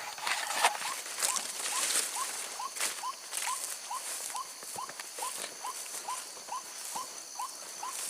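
White-breasted waterhen call: a steady, evenly spaced run of short rising notes, a little over two a second, the repetitive call used to lure the birds in. A few scattered rustles and clicks in the first few seconds, over a steady high hiss.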